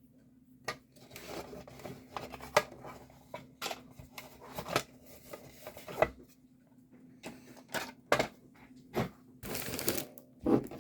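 Small plastic diamond painting pens and a plastic pen holder clicking and tapping irregularly as they are handled, with a short, louder rustle near the end. A faint steady hum runs underneath.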